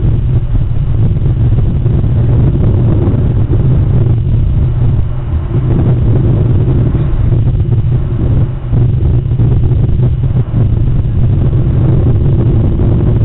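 Steady, loud low rumble picked up by the outdoor nest camera's microphone, with a few brief dips in level.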